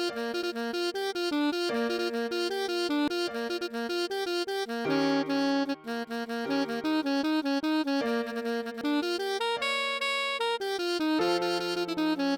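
Instrumental music: an electronically rendered melody for alto sax over bouncing keyboard-like accompaniment, with a lower bass line joining about five seconds in.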